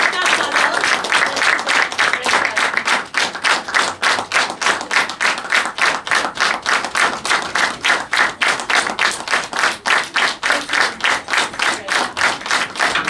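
Small audience applauding, the scattered clapping falling into rhythmic clapping in unison, about three to four claps a second, from about three seconds in.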